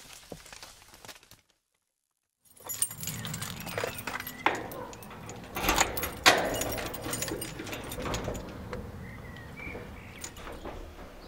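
A bunch of keys jangling as a key is put into and turned in a garage door lock, with a few sharp clicks and clinks; it starts a couple of seconds in, and the loudest click comes about six seconds in.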